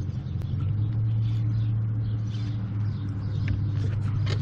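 Electric trolling motor on the bass boat running with a steady low hum.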